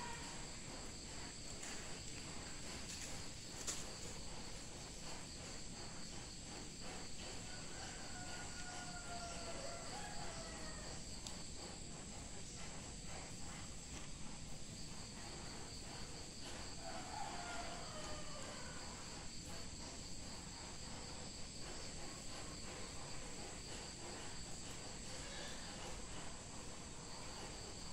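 A steady, high-pitched chorus of insects trilling without a break, over low steady outdoor background noise.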